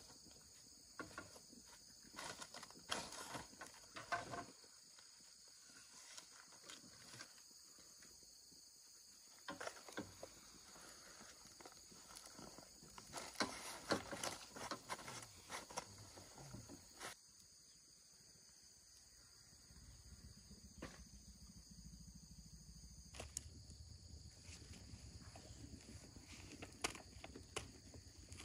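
Faint, steady high-pitched insect chorus, with scattered clicks and knocks; a low rumble joins it about twenty seconds in.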